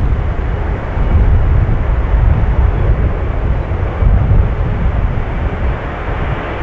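Antonov An-124's four D-18T turbofan engines at take-off power during the take-off roll: a loud, deep, rumbling noise with no clear pitch that swells about a second in and holds as the freighter speeds down the runway.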